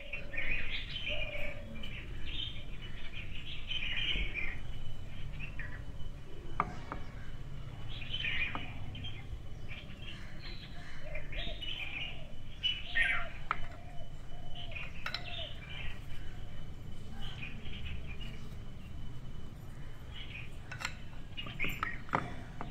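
Birds chirping in many short calls over a low, steady background rumble, with a few sharp clicks near the end.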